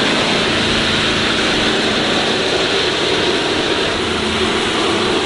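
Pickup truck doing a burnout: the rear tyres spin on concrete while the engine is held at high revs, making a steady, loud noise.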